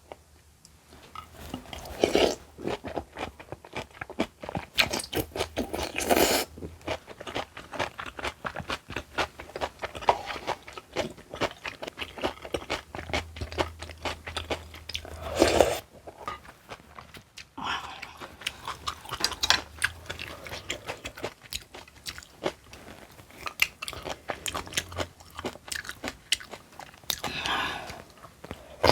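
Close-miked eating: chewing with many crisp crunches of crunchy kimchi, with several louder bites spread through.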